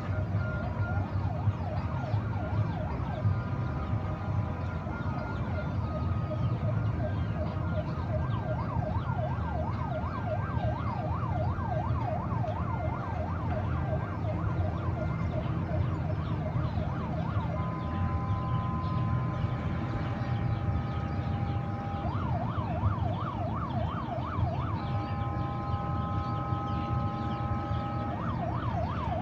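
Electronic sirens sounding in a fast wailing yelp, about three rises and falls a second. From about halfway they alternate with a steady multi-tone horn blast, then the yelp again, over a low steady rumble.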